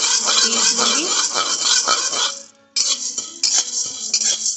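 Dry split lentils being stirred in a steel kadhai, rattling and scraping against the metal in quick, dense clicks. The sound breaks off briefly just past halfway, then resumes.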